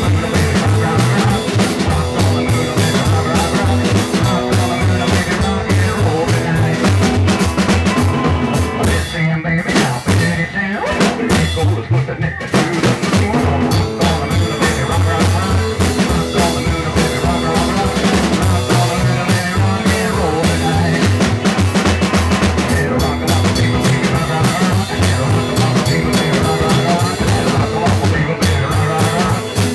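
Live band playing a rock and roll number on drum kit and washtub bass, with a steady drum beat and a stepping bass line.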